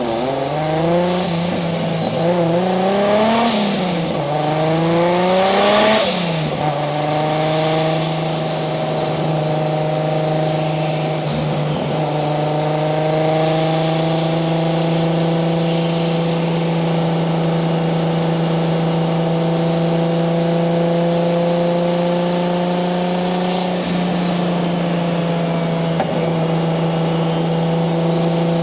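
Single-turbo 1JZ VVTi straight-six in a Nissan 240SX, revving up and falling back a few times with a rising and falling turbo whistle. After about six seconds it settles into steady cruising revs, with a high turbo whine drifting gently in pitch over the engine note.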